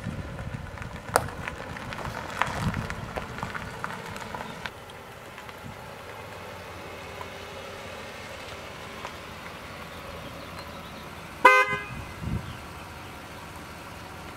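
A car pulls up and comes to a stop, then its horn gives one short, loud honk about eleven and a half seconds in.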